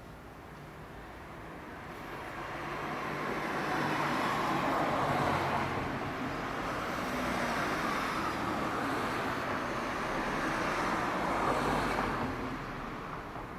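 Road traffic passing on the street: vehicle noise swells about two seconds in, dips, swells again and fades near the end.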